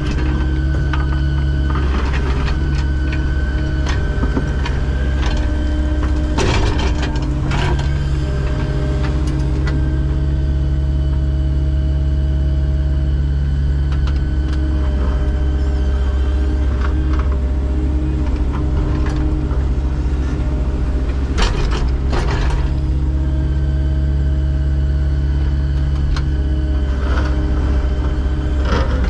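Diesel engine of heavy boring and digging equipment running steadily under a hydraulic whine, with a few sharp metallic knocks at two points, about a quarter and about three quarters of the way through.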